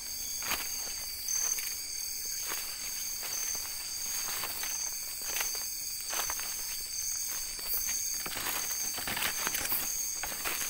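Footsteps and rustling through undergrowth, irregular and busiest near the end, over a steady high-pitched night insect chorus with one call that comes and goes in regular pulses.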